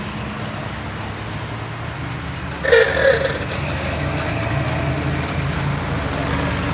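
Classic cars rolling past at low speed, their engines running in a steady low rumble that grows a little as the next car comes closer. About three seconds in there is one short, loud sound over it.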